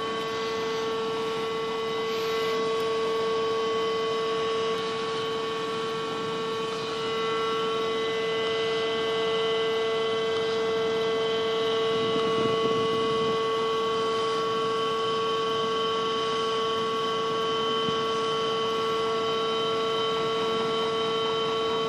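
Container crane machinery running on the moving spreader: a steady electric hum and whine made of several fixed tones over a rough mechanical noise, with a brief low rumble about halfway through.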